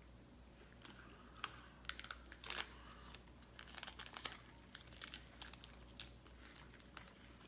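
Candy-bar wrapper crinkling and crackling as it is handled, in faint scattered bursts.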